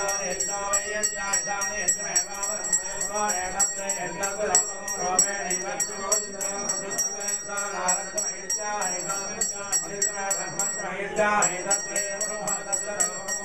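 Temple hand bell rung steadily at about five strokes a second, with a brief pause near the end, over a group of priests chanting Vedic mantras.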